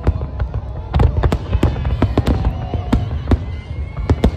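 Aerial fireworks shells bursting in quick, irregular succession: a dozen or so sharp bangs over a continuous low rumble.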